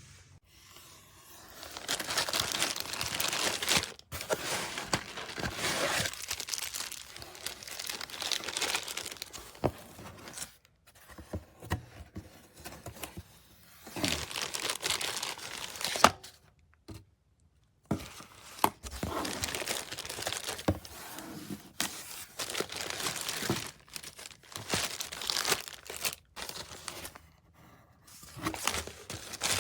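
Crinkling and rustling in irregular bursts, each a second or two long, with short pauses between them.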